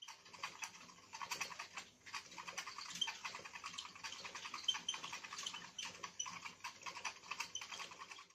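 All for Paws Flutter Bug cat toy running on batteries, its motor whirling the butterfly around on a wire with a rapid, irregular plastic clicking and rattling.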